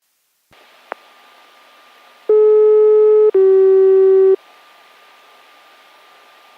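Japanese municipal disaster-prevention radio broadcast opening: a steady hiss comes on with a click, then two clean electronic tones of about a second each, the second a little lower, before the hiss runs on alone.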